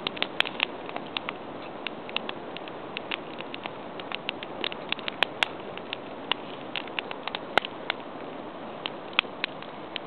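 Wood campfire burning, crackling with irregular sharp pops over a steady hiss from the flames.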